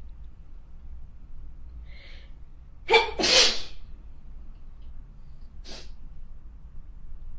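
A person sneezing once. A short breath in comes first, then a sharp voiced onset runs into a longer hissing burst, which is the loudest sound. A brief breath noise follows about two seconds later.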